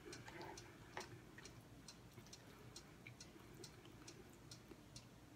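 Faint, even ticking of a clock, about two ticks a second, over quiet room tone.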